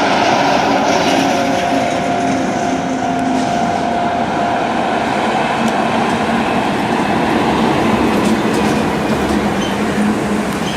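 A heavy double-trailer truck passing close by: a loud, continuous rumble of diesel engine and tyres with no let-up, and a steady whine in the first few seconds.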